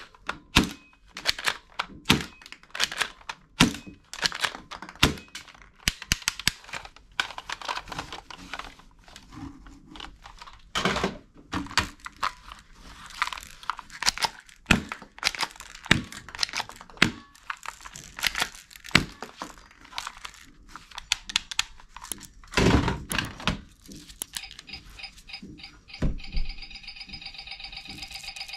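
Hard plastic toy guns clicking, knocking and clattering against each other and the cardboard box as they are handled and rummaged through, in quick irregular knocks. Near the end a steady electronic tone with several pitches starts.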